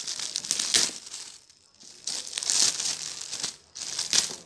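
Shiny gift wrapping and plastic crinkling and tearing as a present is unwrapped by hand, in several bursts with two short pauses.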